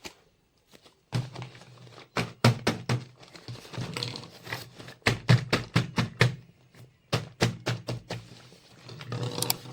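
Miniature plastic toy kitchen pieces and their packaging being handled: a series of sharp clicks and taps in short quick runs, over light rustling.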